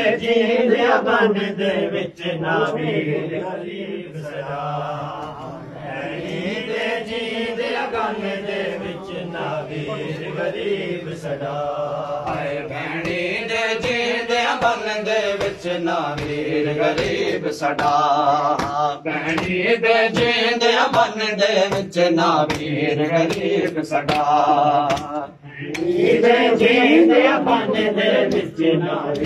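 Male voices chanting a Punjabi noha, a Shia lament, in long wavering sung lines. It is punctuated by scattered sharp slaps of chest-beating matam.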